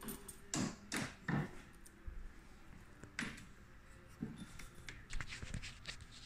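Clunks, clicks and rubbing of a Ryobi 40V cordless push mower's folding handle being worked by hand, with a few louder knocks in the first second and a half, another about three seconds in, and a run of small clicks near the end.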